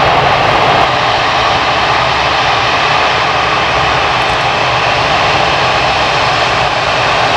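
Airbus A380's four Rolls-Royce Trent 900 turbofan engines running at low taxi power as the airliner taxis toward the listener: a steady jet rush and hiss with a low rumble underneath.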